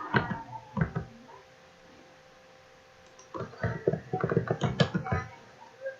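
Computer mouse clicking over a faint steady hum: a few clicks at the start, then a quick run of clicks from about three to five seconds in.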